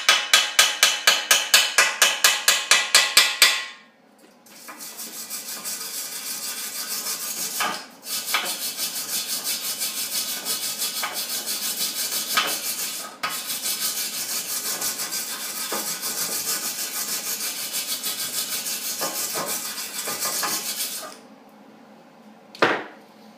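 Hand wire brush scrubbing slag off a fresh flux-core weld on a steel snowmobile exhaust pipe. Fast strokes for the first few seconds, then after a short pause a long, steadier scrubbing that stops about two seconds before the end, followed by one short scrape.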